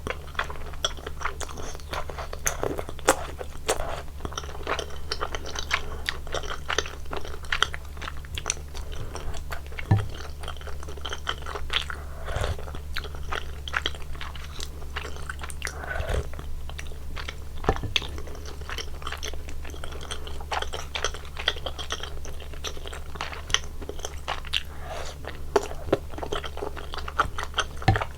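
Close-up eating sounds of spicy soup tteokbokki with cheese: continuous wet chewing and smacking of soft rice cakes, with small clicks and slurps, over a steady low hum.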